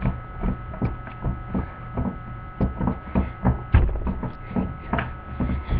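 Steady electrical mains hum under a quick, uneven run of soft knocks and thumps, about three a second.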